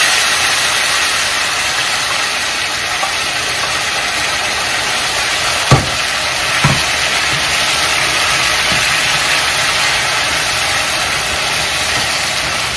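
Loud, steady sizzling as chicken gravy hits a hot pan of fried chicken pieces and is stirred in with a spatula. Two sharp knocks about a second apart near the middle.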